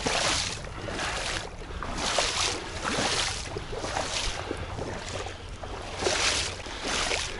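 A person wading through shallow water, a swishing slosh about once a second with each stride.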